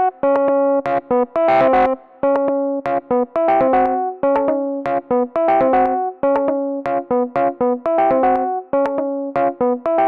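Synthesized electric-piano-like chords from a DAW, played in short, abruptly cut notes in a quick, choppy repeating pattern.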